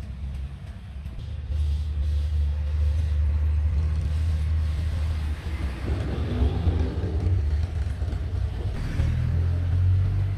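Low, steady rumble that grows louder about a second and a half in.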